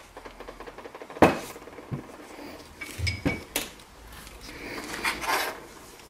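A steel camshaft and flat hydraulic tappet from a Mercedes-AMG M156 V8 being handled on a workbench: several separate metal knocks and clinks as the parts are moved and set down, the loudest a little over a second in.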